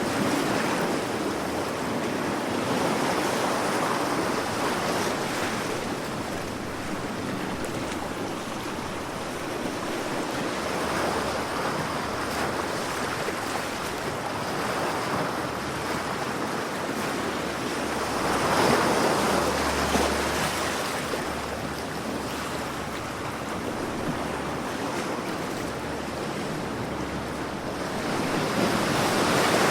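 Sea waves washing in without a break, swelling and easing every few seconds, with a bigger wave breaking about two-thirds of the way through.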